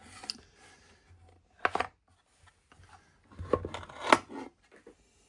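Watchmaker's jewel press being handled: separate small clicks and knocks, one about a second and a half in and a cluster near four seconds, the sharpest click near the end of that cluster.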